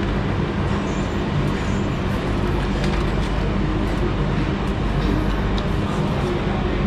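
Steady, loud background rumble with a low hum running under it, and a few faint clicks.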